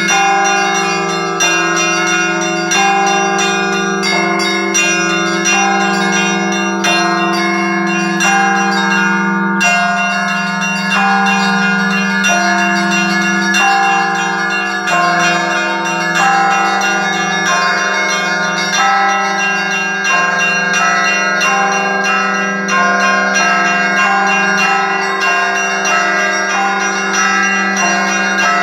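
Orthodox cathedral bells ringing: smaller bells struck in a quick, steady rhythm over the long, sustained hum of a large bell. The pattern of pitches changes about halfway through.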